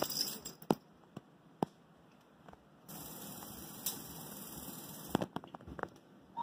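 Scattered sharp clicks and clatters of steel dog-food bowls and dry kibble as dogs are fed, with a steady hiss for about two seconds in the middle.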